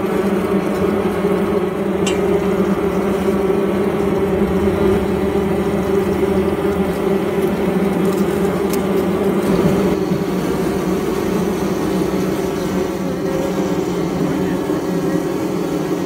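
Honey bee colony in a hollow ash trunk buzzing: a dense, steady hum of many bees at once.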